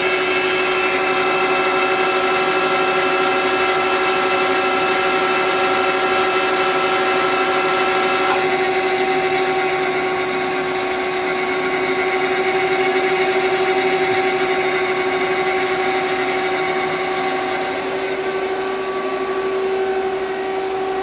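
A 1995 Citizen L20 CNC Swiss-type lathe running its program with the live rotary tools and sub-spindle spinning: a steady machine whine of several tones at once. About eight seconds in, the higher tones cut off suddenly while a lower hum carries on.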